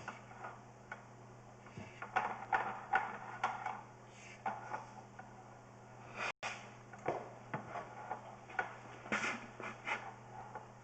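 Sewer inspection camera's push cable being fed from its reel into a drain pipe: irregular clicks and knocks in clusters, over a steady low hum.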